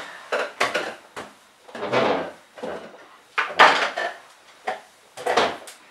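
Small hard household objects clinking and knocking as scissors are searched for and fetched: a series of separate clatters, the loudest a little past the middle.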